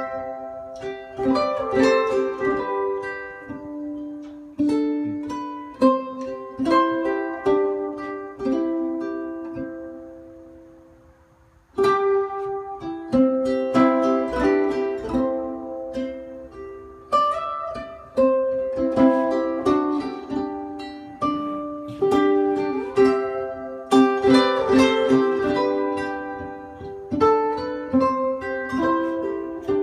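Instrumental plucked-string music played back over a pair of Dynaco A25 speakers driven by a Dynaco ST-70 tube power amplifier running EL34 output tubes. The notes die away to near silence about ten seconds in, and a new phrase starts about two seconds later.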